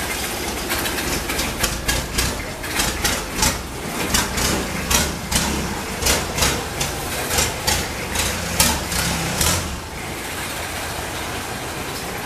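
An engine idling with a steady low hum and many irregular clattering knocks over it. The knocks stop about ten seconds in, leaving a quieter hum.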